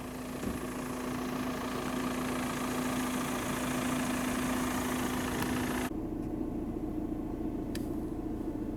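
Car engine and road noise heard from inside the moving car, with a steady engine hum that climbs slightly as the car gathers speed. About six seconds in the hiss of the road drops away suddenly and the hum shifts higher.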